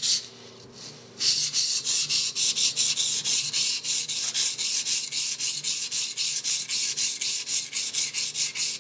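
A blue steel Moritaka mini nakiri stroked back and forth on a wet 320 grit Nubatama Bamboo waterstone: a strong, abrasive rhythmic scraping of about five strokes a second. There is a short lull about a second in.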